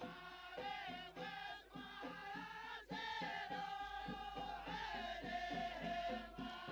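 Quiet background music: a chant-like sung melody with long, bending held notes over a faint beat.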